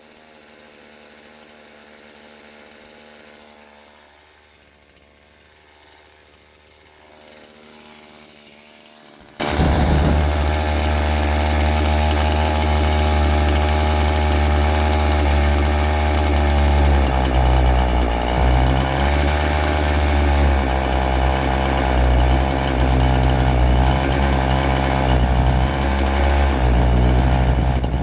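Two-stroke chainsaw being warmed up to set its idle: faint at first, then running loud from about nine seconds in, its speed dipping and surging a few times in the middle.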